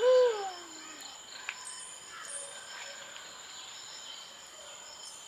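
Steady high-pitched chirring of insects, crickets, running throughout. It opens with a short pitched vocal sound that rises slightly and then falls away within about a second.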